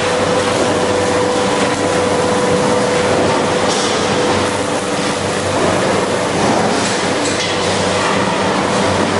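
Steady industrial machine noise from a welding shop: a constant hiss and rumble under a held hum, with a few faint ticks.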